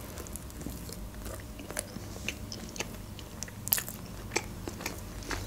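Close-miked bite into a bun topped with shredded ham, then chewing: scattered crisp crunches and wet mouth clicks, a few sharper ones around the middle.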